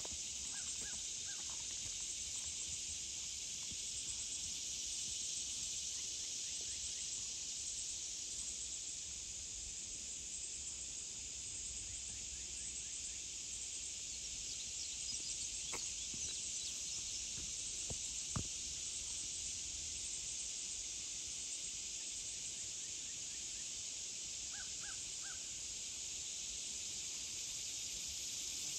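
Crows cawing in quick runs of three, once just after the start and again near the end, over a steady high hiss.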